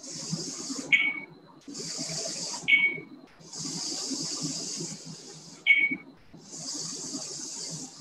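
Blue-Bot floor robot running its programmed moves: its small drive motors whir in stretches of one to two seconds, four times, with a short chirp in the pause between moves.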